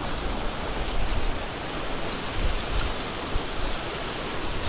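Wind buffeting the camera's microphone: a steady rushing noise with uneven low rumbles.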